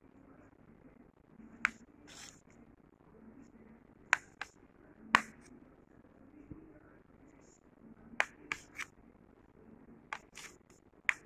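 Kitchen knife cutting through hard-boiled eggs, its blade clicking sharply against the plate about ten times at uneven intervals.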